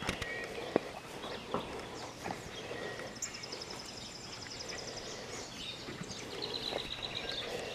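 A horse eating hay outdoors: soft crunching and pulling at the hay with a few sharp clicks in the first couple of seconds. A bird trills twice in the background, a fast high trill about three seconds in and a lower, shorter one near the end.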